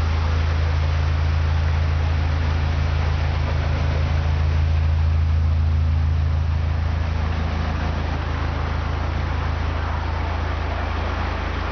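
Narrowboat's engine running steadily under way with a deep, even throb, slightly quieter from about seven seconds in.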